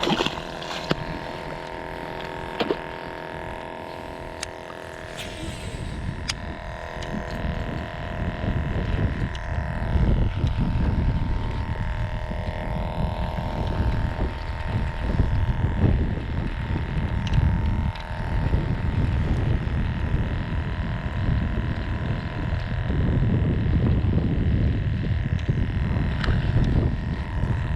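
Wind buffeting the microphone in loud, uneven low rumbles, over a steady hum from a boat motor.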